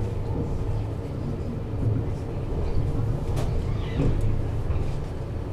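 Toyohashi Railway T1000 'Hottram' low-floor tram heard from inside the cab while running along street track: a steady low rumble of the motors and wheels with a faint steady hum, and a single sharp click about three and a half seconds in.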